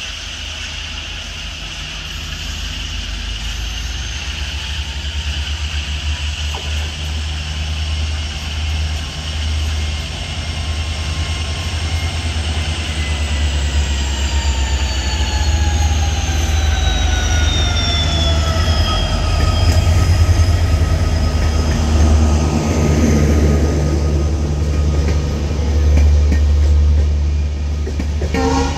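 Diesel-hauled express train approaching and passing: the diesel locomotive's low engine rumble grows louder, and its whine falls steadily in pitch as it goes by. The air-conditioned passenger coaches then roll past with wheel clatter on the rails.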